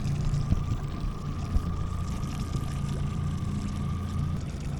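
Spinning-reel drag buzzing steadily as a hooked sturgeon pulls line off against a tightly set drag, stopping near the end. Under it is a low steady hum of the boat, with water lapping.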